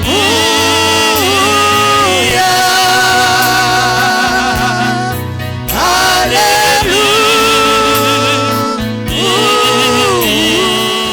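Gospel music with a singing voice over a steady bass line, in phrases with short breaks.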